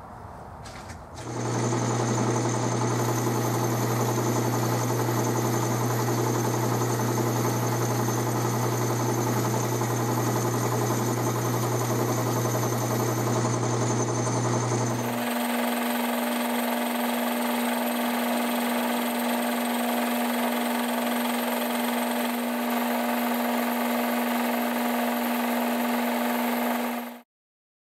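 12-inch Atlas lathe running under power, a steady machine hum with a strong low drone, while a tool turns the outside of a brass flywheel. It starts about a second in, the drone jumps abruptly to a higher pitch about halfway through, and the sound cuts off suddenly near the end.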